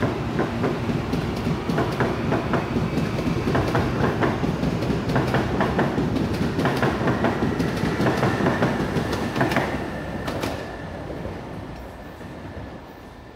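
CAF series 8500 electric train pulling out of the station, the wheels of its cars clicking over the rail joints with a steady rumble. A high whine comes in past the middle. The sound fades after about ten seconds as the last car passes.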